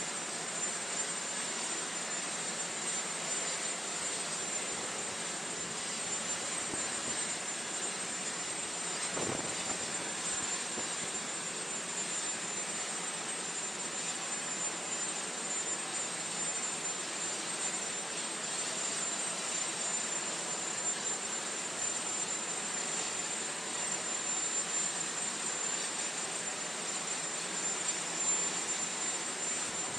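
Aircraft turbine engine running steadily: a continuous rushing noise with a steady high whine over it.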